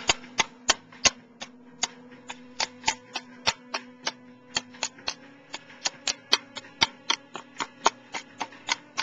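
An oar knocking repeatedly on a sea urchin's hard shell as it is beaten to crack it open. The knocks are sharp and irregular, about three a second.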